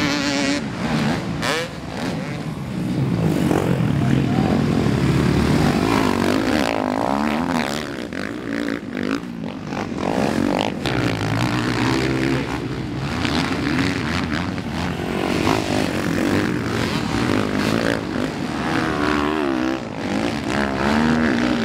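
Several motocross bikes racing together, their engines revving up and down as the riders throttle on and off over the jumps, the pitches overlapping and rising and falling.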